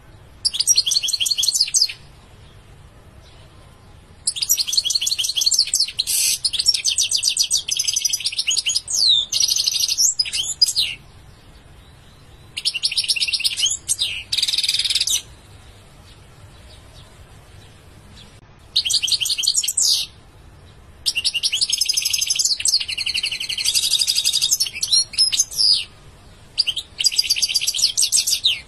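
European goldfinch singing: about six bursts of fast, trilling song a few seconds each, with short pauses between them.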